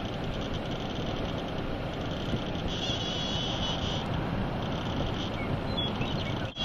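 Strong wind rushing steadily, with a faint high whine that swells about three seconds in; the sound cuts out for a moment near the end.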